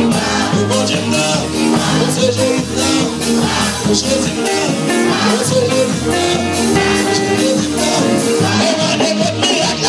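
Loud gospel praise music from a live church band, with a steady drum beat and bass under a choir singing.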